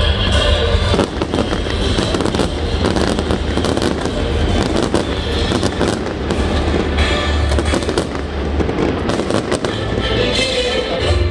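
Fireworks display: rapid bangs and crackles of aerial shells and sparks, with music playing underneath.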